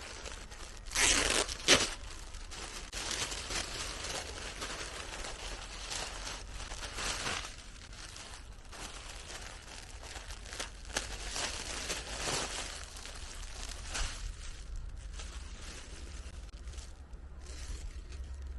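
Garden insect-proof net bags and their packaging crinkling and rustling as they are handled, in irregular bursts, the loudest about a second in.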